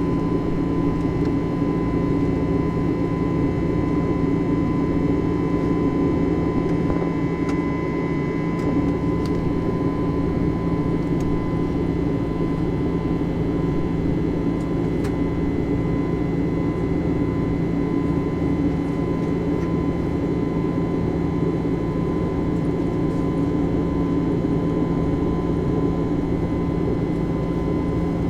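Airbus A320 cabin noise in flight: a steady drone of the jet engines and rushing air, with constant hum tones over it.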